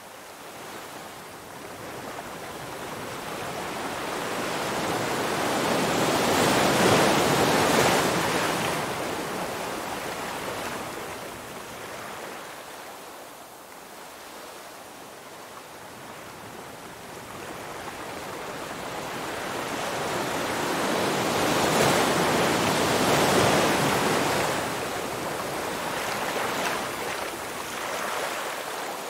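Ocean waves washing onto a beach, with no other sound. Two slow swells of surf build and fade, one peaking about seven seconds in and the other about twenty-two seconds in.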